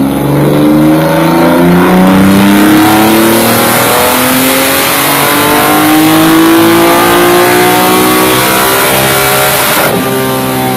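Naturally aspirated 3.8-litre inline-six of an Opel Omega Evo 500 DTM car revving loudly through its individual intake trumpets. The engine note climbs steadily in pitch over several seconds.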